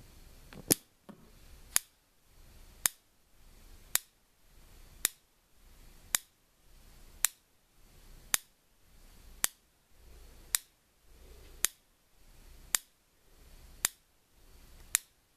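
Homemade electric fence charger firing a spark across a half-inch gap, a sharp snap about once a second at a steady rate. The high-voltage pulses come from an old Chevrolet-type ignition coil triggered by a 555 timer board.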